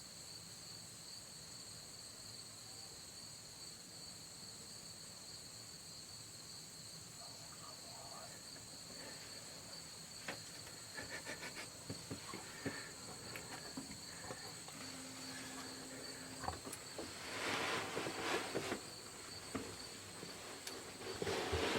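Insects trilling steadily at two high pitches. From about halfway there are scattered soft clicks and rustling, louder in two short spells near the end.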